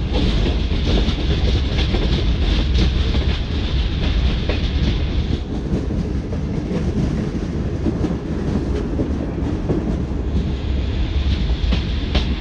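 Greenline Express passenger train running along the track: a steady rumble of the coaches, with the clickety-clack of wheels over rail joints. A high hiss fades out about five seconds in and comes back near the end.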